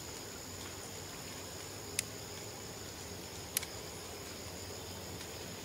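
Steady high-pitched drone of insects, two even tones held without a break. Two sharp clicks stand out, about two seconds in and again a second and a half later.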